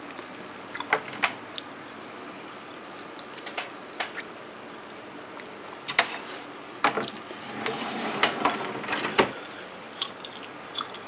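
Scattered sharp clicks and knocks of things being handled, with a busier stretch of rustling and knocking about two-thirds of the way through.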